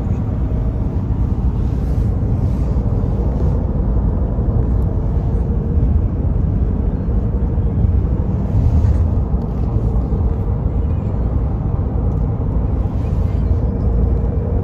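Steady low rumble of a car heard from inside the cabin, with a faint steady hum.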